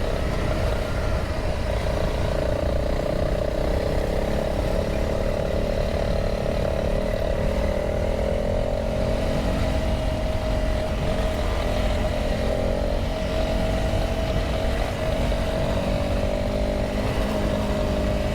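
Honda CRF300L's single-cylinder engine running steadily under way, its pitch wavering a little, with wind and riding noise underneath.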